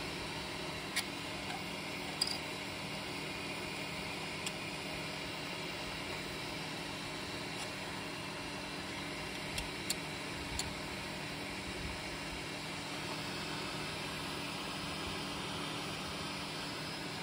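Paused Bambu Lab 3D printer with its fans running: a steady hum with an even hiss, and a few faint light clicks.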